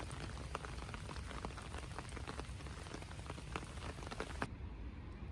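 Rain falling, with many separate drops ticking over a steady patter and a low rumble underneath. About four and a half seconds in, the sound changes abruptly as the high patter drops away.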